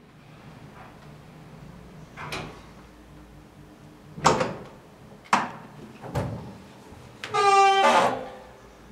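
Folding accordion door being opened along its track: four separate knocks and clacks from its panels, then a squeak lasting under a second near the end.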